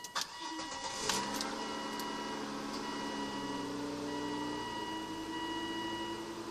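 Volvo S80 T6 twin-turbo straight-six engine started after a fuel filter change: a brief crank, then it catches about a second in and settles into a steady idle. A thin electronic beep tone sounds on and off over it.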